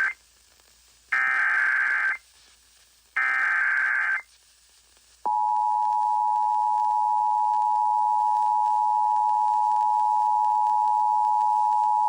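Emergency Alert System tones: the tail of one SAME header burst, then two more one-second bursts of shrill digital data screech about a second apart, encoding the severe thunderstorm warning. About five seconds in, the steady two-tone EAS attention signal starts and holds.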